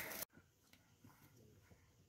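Near silence after a brief noise is cut off abruptly at the very start.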